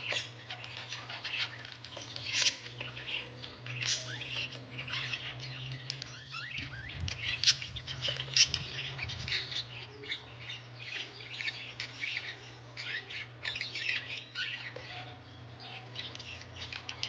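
Small birds chirping and twittering in quick, irregular calls over a steady low hum.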